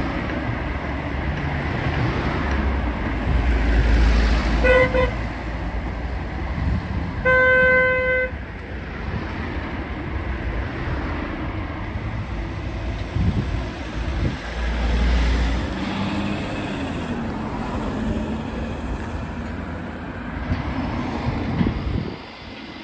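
A vehicle horn sounding twice: a short toot, then a longer blast of about a second a few seconds later, over passing road traffic.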